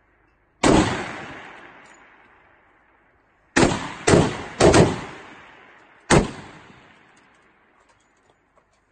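Magnum rifle shots on a firing line: a single sharp report about half a second in, a quick cluster of three or four around the middle, and one more near the end of the middle. Each has a long echoing tail. The shots come too close together for one bolt-action rifle, so several rifles on the line are firing.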